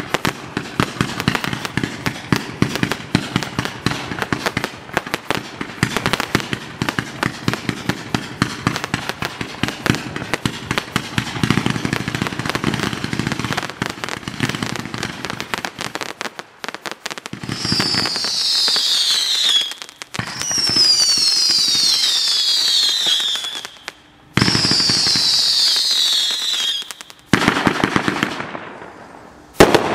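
Mad Ox Pyro Fury 500-gram, 200-shot fireworks cake firing: a rapid stream of shots and crackling bursts for about the first half. Then come three spells of about three seconds each of several overlapping whistles falling in pitch, and a last spell of shots that fades near the end.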